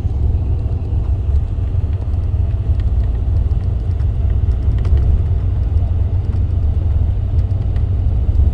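Steady low rumble of a car travelling at about 100 km/h: road and engine noise.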